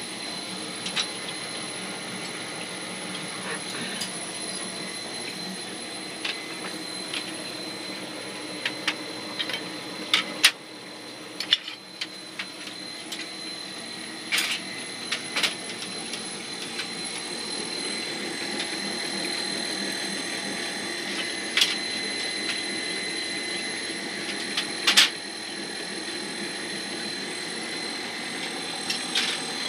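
Machinery running steadily, with a thin high whine over it and scattered sharp clicks and knocks; the steady noise gets a little louder a little past halfway.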